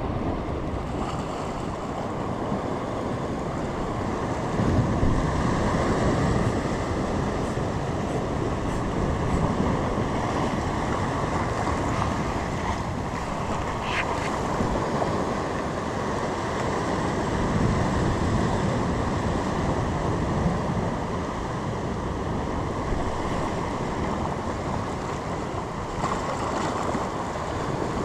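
Ocean surf and wind on the microphone: a steady rushing noise that swells and eases every few seconds.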